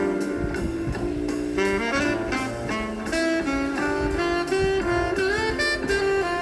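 Instrumental jazz background music: a melody line with sliding notes over bass and drums.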